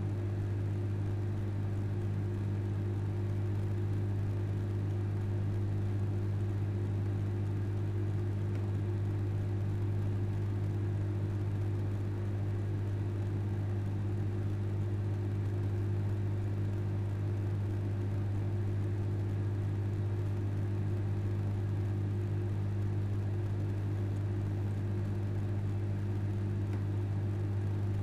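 Microwave oven running at full power: a steady low hum.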